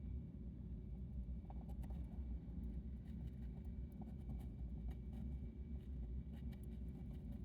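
Hamster nibbling pumpkin: faint, irregular little clicks of chewing begin about a second and a half in, over a steady low hum.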